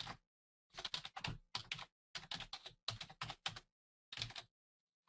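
Computer keyboard typing: faint, quick keystrokes in short bursts, stopping about four and a half seconds in.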